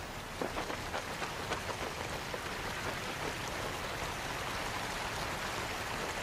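Water rushing down a concrete spillway: a steady rush, with a flurry of splashing spatters in the first couple of seconds.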